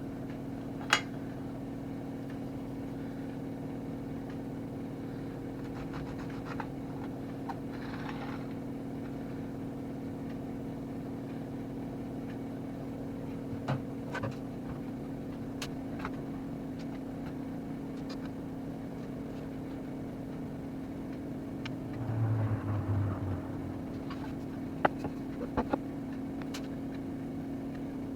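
A steady low mechanical hum runs underneath. Over it come scattered light clicks and taps of a biscuit cutter and cut shapes being laid onto a lined baking tray. About 22 seconds in there is a brief, louder low knock and rumble.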